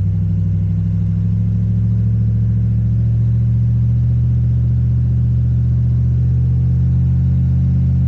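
Car engine running steadily at a raised speed, held at about 2,000 rpm, shortly after an oil change.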